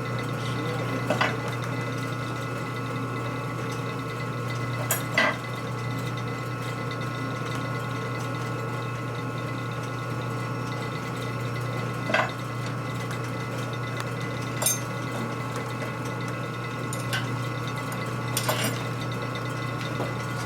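A shop machine tool runs steadily with a low hum and a steady whine. A few short, light metallic clicks or knocks sound over it, about five in all, spaced several seconds apart.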